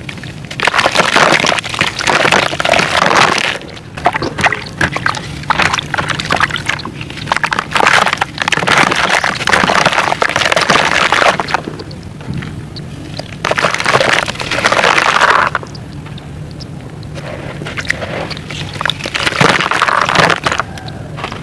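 Gritty black sand-cement being crumbled and mixed by hand: crunching and scraping in several bursts a few seconds long, with short pauses between them.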